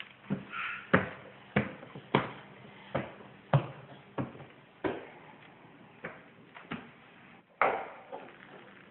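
About a dozen sharp taps or knocks, irregularly spaced roughly every half second to a second, each with a short ringing tail.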